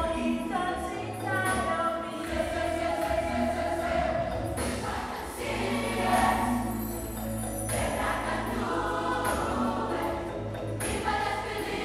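Children's choir singing together, over a steady low bass line.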